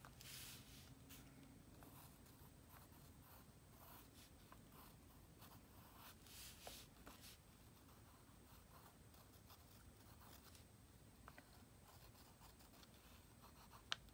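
Faint scratching of a pencil on sketchbook paper in a few short strokes, with a single sharp tick just before the end.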